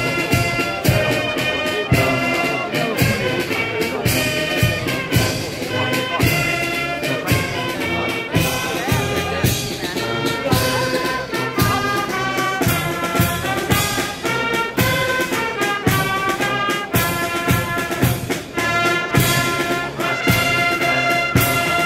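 Military brass band playing live outdoors, with trumpets, trombones and tubas over a steady drum beat.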